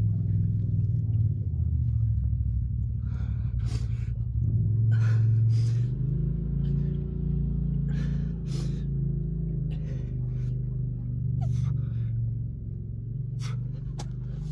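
A man's short, sharp breaths as he does push-ups, coming at irregular intervals over a steady low rumble.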